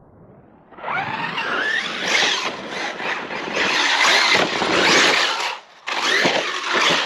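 Arrma Fireteam RC car's brushless electric motor whining at speed. It starts abruptly about a second in with a high whine that climbs and then holds, drops out briefly near the end, then comes back.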